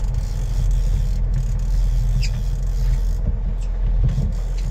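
Boat engine running steadily at sea, a continuous low drone, with a faint brief high chirp about two seconds in.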